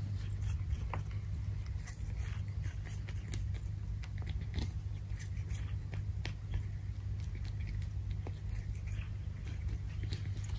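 An animal chewing food, with many small, irregular crunching clicks over a steady low rumble.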